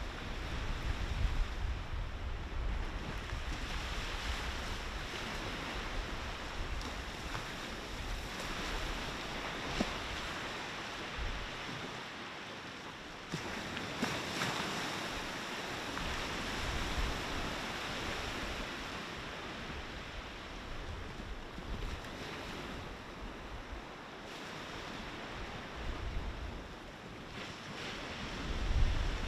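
Sea waves breaking and washing on the shore in slow swells, with wind buffeting the microphone in low rumbling gusts near the start and again near the end.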